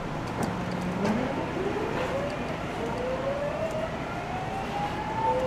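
Nagoya Municipal Subway 3050-series train heard from inside the car as it pulls away and accelerates. Its inverter-driven traction motors whine, rising steadily in pitch from about a second in, dropping back near the end and starting to rise again, over the rumble of the car on the track.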